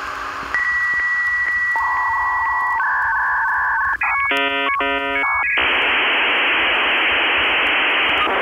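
Electronic tones, then a short run of stacked beeps about four seconds in, giving way after five and a half seconds to a steady radio static hiss.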